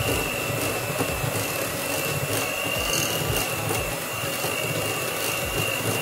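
Electric hand mixer running steadily with a high whine, its beaters churning a thick cheese and mayonnaise mixture in a glass bowl.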